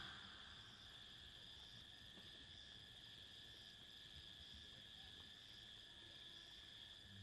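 Faint chorus of night insects: a steady, high-pitched drone.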